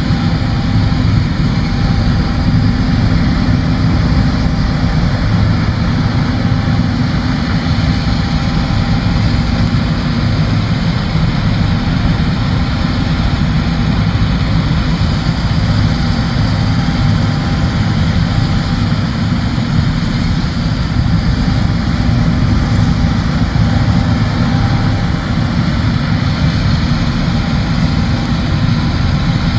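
John Deere combine harvester running steadily while harvesting soybeans, a continuous deep engine and machinery drone.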